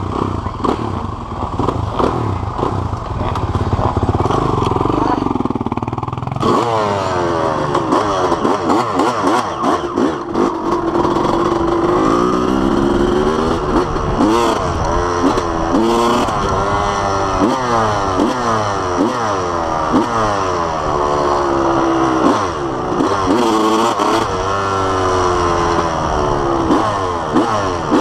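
Dirt bike engine running steadily at first, then from about six seconds in pulling away and revving, its pitch rising and falling again and again as the bike rides along.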